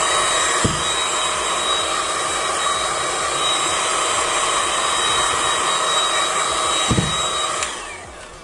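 Hot-air heat gun running steadily with a high whine while it shrinks the covering onto a homemade 12 V lithium-ion battery pack. It switches off near the end and winds down, with a couple of faint knocks of the pack being handled.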